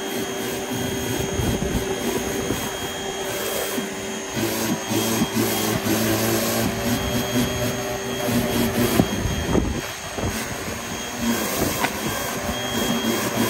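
Spear & Jackson 2200 W electric pressure washer running steadily, its motor and pump droning while the rotary surface-cleaner attachment sprays water hissing onto concrete paving. The sound dips briefly about ten seconds in.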